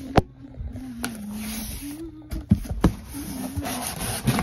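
Cardboard box flaps being folded shut, rustling, with four sharp knocks as they are pushed down, while a person hums a low wavering note.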